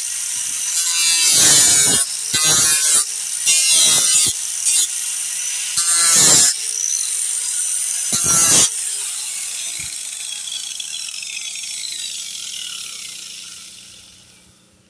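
Cordless angle grinder with a sanding disc whining at speed, with about five short, louder bursts of grinding as the disc is pressed into the boat's fiberglass hull bottom to open up hollow voids in the laminate. After about nine seconds the grinding stops and the whine slowly fades away as the disc winds down.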